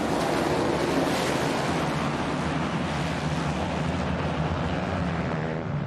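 A full field of 450cc four-stroke motocross bikes at full throttle as the pack launches off the start gate, a dense, steady mass of engine noise.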